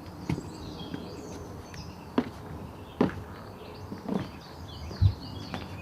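A handful of short knocks and taps, the loudest a low thump near the end, with birds chirping in the background.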